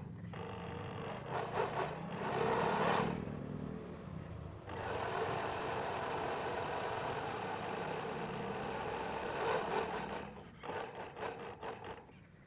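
RC model boat under way, driven by a 775 DC electric motor: a steady rushing of water along the hull with the motor whirring under it. The rush is uneven for the first few seconds, steady through the middle, and breaks into choppy splashes near the end.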